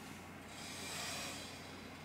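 Utility knife blade drawn along a steel ruler, slicing through a sheet of board: one soft scraping hiss about a second long that swells and fades.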